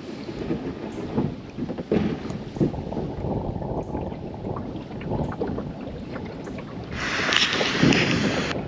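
Water splashing and lapping around a kayak as it is paddled, with short irregular splashes and wind rumbling on the microphone. About seven seconds in, a louder hiss rises and lasts a little over a second.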